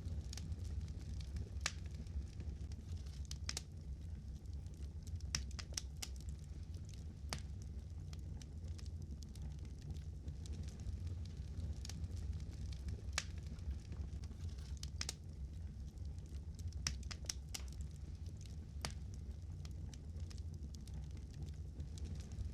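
Fire crackling: irregular sharp pops and snaps, sometimes in quick clusters, over a steady low rumble.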